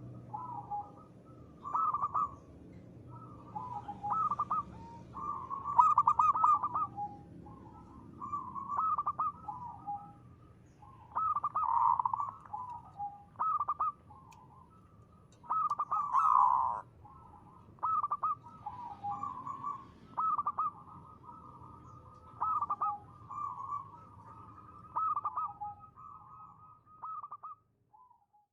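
Zebra dove (perkutut) cooing: short phrases of quick stuttering coos, repeated every second or two.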